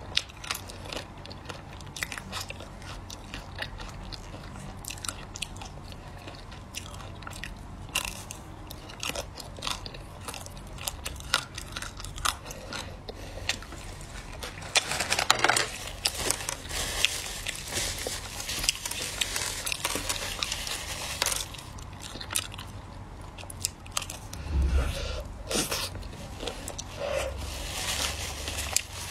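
Hard-frozen ice cream bar on a stick being bitten and chewed close to the microphone: many sharp, crisp crunches with chewing between them. The crunching grows denser for several seconds about halfway through and again near the end.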